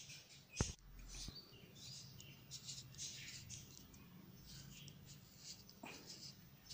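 Faint scraping of a handheld pencil sharpener's blade shaving a soft 10B graphite pencil, in short, irregular strokes. There is a sharp click about half a second in.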